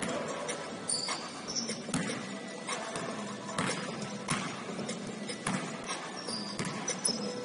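Basketball bouncing on a hardwood gym floor, with a sharp thud every half second to a second, and short high squeaks of sneakers on the court.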